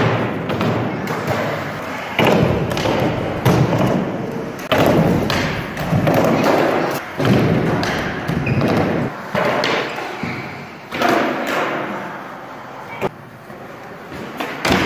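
Skateboards rolling over and slamming down on plywood ramps, a wooden box and a hardwood gym floor: a string of sharp thuds and clacks every second or two, echoing in a large hall.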